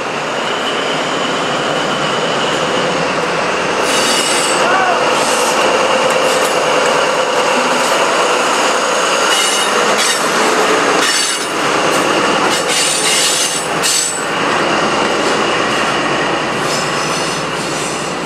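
InterCity 125 High Speed Train pulling out close past: coaches and the rear diesel power car rolling by with wheel squeal on the rails and clattering over the track, then drawing away.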